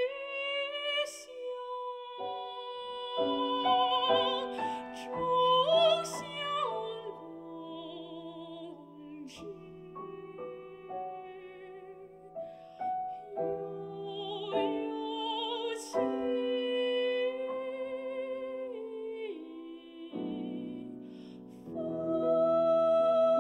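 A woman singing in classical style with vibrato, accompanied by a grand piano; about 22 seconds in the music swells louder on a long held note.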